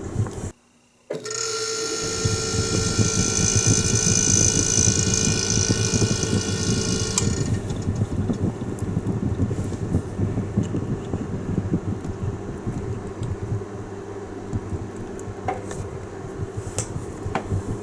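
A machine running with a steady hum. A high whining tone rides on top of it for about six seconds, then stops, leaving the hum.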